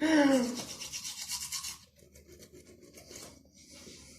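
Toothbrush scrubbing teeth in quick, rhythmic strokes, strongest for about the first two seconds and fainter after. It opens with a short vocal sound that falls in pitch.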